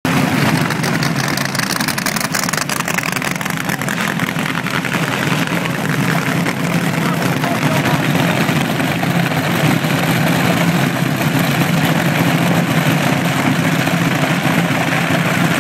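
Several nostalgia front-engine dragsters idling together with open headers: a loud, steady, rapid cackle of their nitro-burning engines, growing slightly louder after a few seconds.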